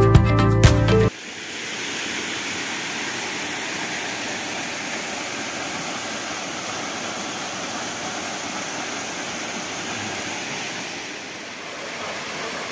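Background music that cuts off abruptly about a second in, followed by the steady rush of a small waterfall pouring into a rock pool.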